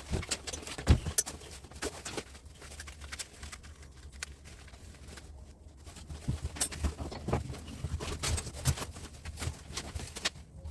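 A knife cutting and scraping plastic insulation off copper wire, giving irregular scrapes and clicks with the odd low knock as the wire is handled.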